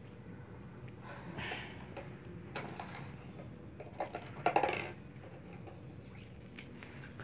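Faint clinks and scrapes of a metal bowl being handled, with a few sharp clicks and the loudest clatter about four and a half seconds in.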